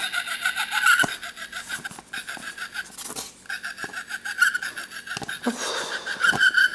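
Battery-powered sound module of a Halloween decoration playing a stuttering electronic voice loop through its small speaker, a rapidly pulsing tone with a few handling clicks. It keeps sounding even though switched to off, which she puts down to play in the off button so the device doesn't detect that it is off.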